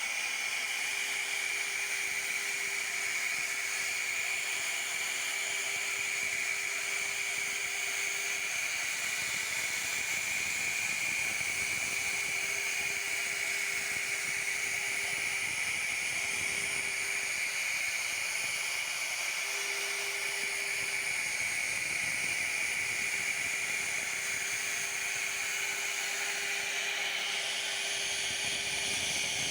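1325 CNC router running as its spindle carves wood: a steady, continuous hiss with a thin steady tone that drops out and comes back a few times.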